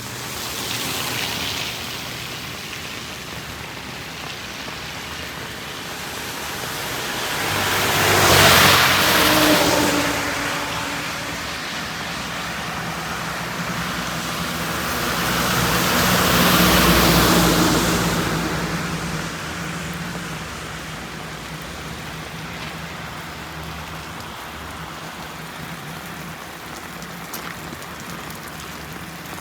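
Steady heavy rain with two vehicles driving past on a wet road, their tyres hissing through the water and their engines humming. Each pass swells and fades, the first peaking about eight seconds in and the second, slightly quieter, around seventeen seconds.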